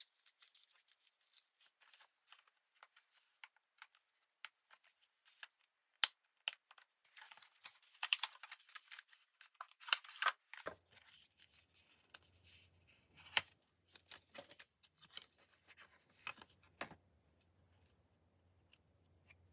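Merchandise packaging being unwrapped by hand: plastic and paper crinkling and tearing, with many small clicks and taps, busiest in the middle and later part. A faint low hum comes in about halfway.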